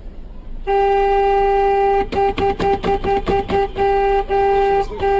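A horn sounding one steady note: a long blast, then a quick string of short toots, then more long blasts with brief breaks.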